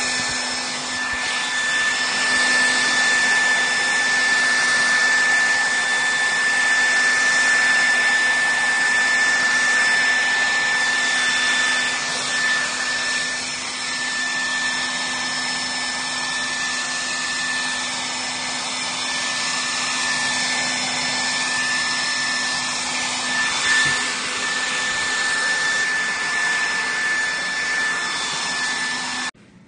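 Hair dryer running steadily, blowing hot air onto wax crayons to melt them: a continuous rush of air with a steady whine. It switches off suddenly near the end.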